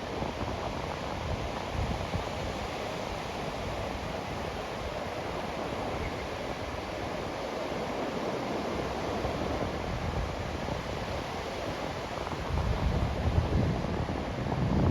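Sea waves washing onto a sandy beach, a steady rush of surf, with wind buffeting the microphone in low gusts near the end.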